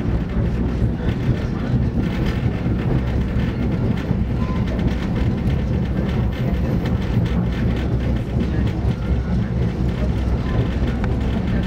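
Passenger train rolling along the track, heard from aboard the coach: a steady low rumble of wheels on rails that holds level throughout.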